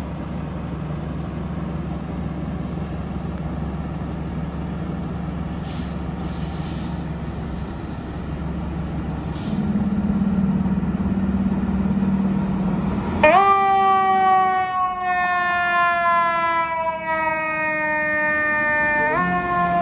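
2020 Seagrave FDNY fire engine's diesel engine idling with a steady low rumble, revving up about halfway through. Its siren then starts, winding up sharply, falling slowly over several seconds and winding up again near the end.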